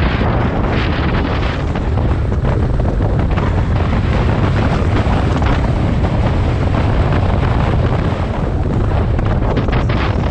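Wind rushing and buffeting over the camera microphone of a moving motorcycle, with the bike's engine a steady low drone underneath.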